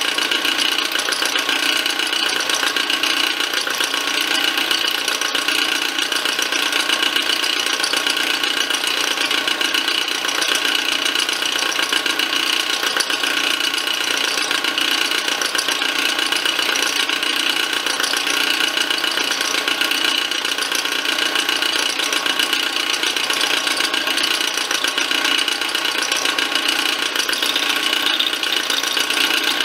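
Milling machine running as an end mill cuts a slot into a round metal shaft: a steady mechanical drone with several high, constant tones, unbroken throughout.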